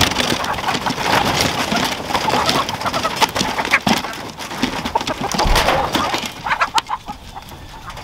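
A flock of hens clucking as they rush out of a coop, with wings flapping and feet scrabbling on its wooden ramp. The commotion dies down about seven seconds in.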